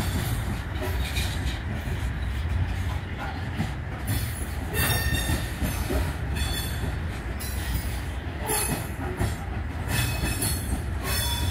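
Freight train of covered hopper cars rolling slowly past close by: a steady low rumble of steel wheels on rail, with a clank from the wheelsets every second or so and brief high-pitched wheel squeals that come and go.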